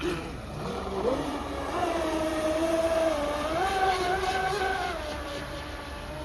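Fast electric RC boat's motor whining as the boat runs across the water. The pitch rises about a second in, holds, steps up briefly around the middle, then eases down near the end.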